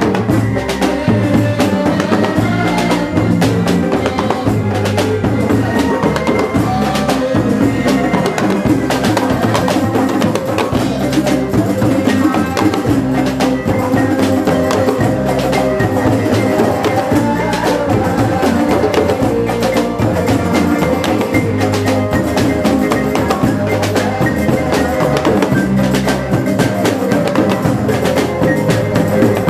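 Live Islamic-style band music: rebana hand drums and a drum kit keep a steady, busy beat over a sustained bass line.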